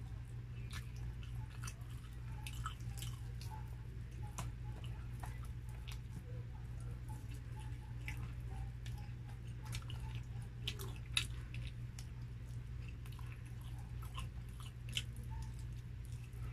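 Close-up mouth sounds of someone eating grilled chicken by hand: chewing, with frequent short wet clicks and smacks. A steady low hum runs underneath.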